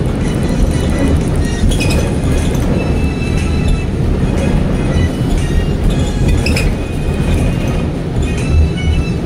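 Steady low road rumble inside a moving vehicle, with scattered rattles and clinks.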